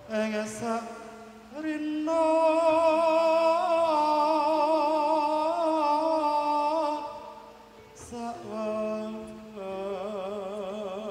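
A man singing a slow, drawn-out Javanese vocal melody over the sound system, holding long notes with a wavering vibrato. One long phrase, a short break, then a second phrase begins near the end.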